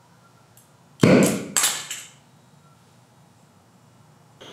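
Oxy-acetylene torch being lit: two loud pops about a second in as the gas catches, then a steady hiss of gas starting near the end as the flame is opened up.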